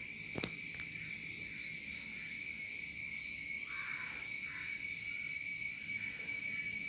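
A steady high-pitched whine in several constant tones, with a single sharp click about half a second in.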